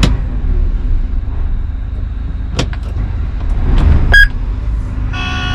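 Combine harvester cab with the machine running in a steady low rumble. A few clicks and a short loud beep come about four seconds in, then a pulsing warning alarm starts near the end. The operator suspects the alarm comes from wiring chewed by rodents.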